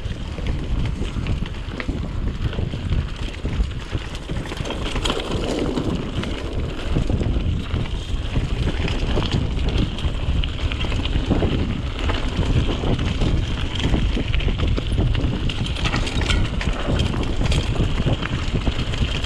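Btwin Rockrider ST 540S mountain bike riding fast down a dirt and stone forest trail. Wind buffets the helmet or bike-mounted action-camera microphone over the tyres on loose ground, with the bike rattling and knocking in a constant run of sharp clicks as it goes over rocks and roots.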